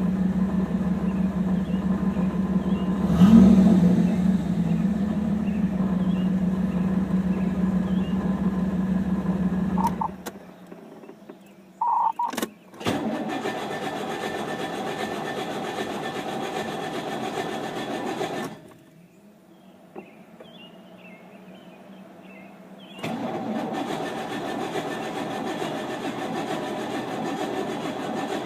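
A Pontiac Trans Am's TPI V8 running steadily, then shut off. After a short chime and clicks, the starter cranks it twice, each for about five seconds, and it does not catch: a hard start after a long drive.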